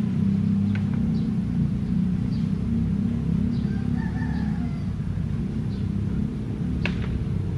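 Diesel-electric locomotive engine running at low power as the locomotive creeps forward during shunting: a steady low rumble. A single sharp click sounds near the end.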